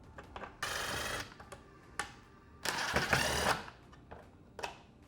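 A small powered screwdriver runs in two short bursts, backing out the two Phillips screws from the truck's side mirror, with light clicks of tool and plastic between the bursts.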